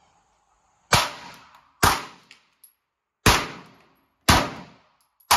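Five 9mm pistol shots fired at about one-second intervals in a drill, each with a short echoing tail.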